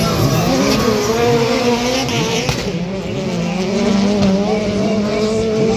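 Several autocross race cars' engines running hard at high revs. Their pitches waver and sweep up and down as the cars accelerate, shift and pass by.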